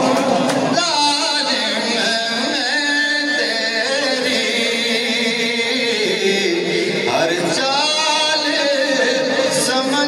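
A voice singing a slow, melismatic melody with wavering, ornamented pitch. A steady lower tone runs beneath it.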